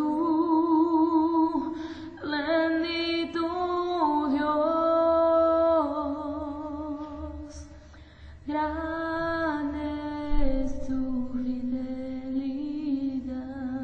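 A woman singing a slow Spanish worship song, holding long notes with a wavering vibrato and moving between them in a slow, legato line.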